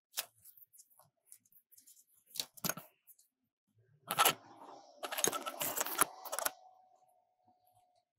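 Pages of a spiral-bound photobook being turned by hand: a few light paper taps, then a louder flurry of paper rustling and flapping about four to six and a half seconds in.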